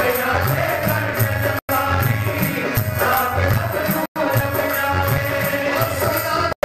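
Bhajan (Hindu devotional music): melodic singing over a steady hand-percussion beat with rattling, shaken percussion. The audio drops out for an instant twice, about a second and a half in and about four seconds in.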